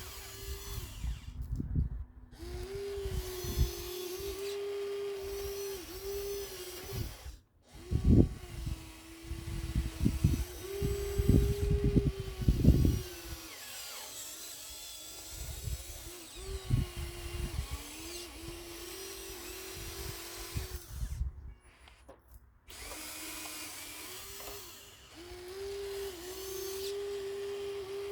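Radio-controlled hydraulic construction model working: its electric hydraulic pump whines steadily, the pitch dipping and stepping as the controls are moved, with heavy clunks and rattles of material being dug and dumped, thickest in the middle. The sound breaks off briefly twice.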